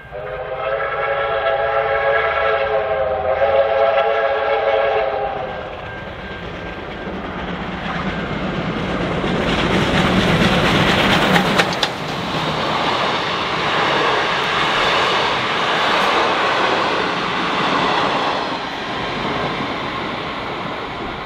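A train sounds a single sustained warning blast, a steady chord of several tones lasting about five seconds. It then passes close by, the rumble and clatter of its wheels on the rails building to a peak about halfway through and slowly easing.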